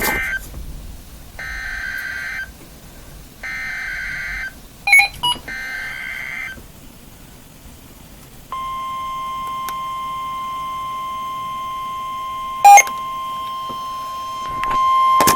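NOAA Weather Radio Emergency Alert System signal: three one-second bursts of warbling SAME data header encoding the next warning, then a steady single-pitch warning alarm tone starting about 8.5 seconds in. A couple of short, sharp beeps cut through, the loudest near the end.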